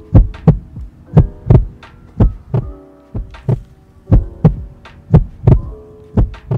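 Heartbeat sound effect: paired lub-dub thumps, about one pair a second, over a faint steady hum.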